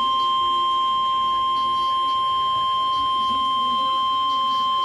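NOAA Weather Radio 1050 Hz warning alarm tone: one steady, unbroken high tone broadcast in the required weekly test, the signal that switches on weather alert receivers.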